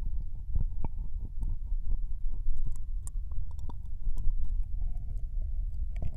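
Ear licking into a binaural dummy-head microphone's right ear: a run of wet mouth clicks and smacks over a constant low rumble of contact with the mic.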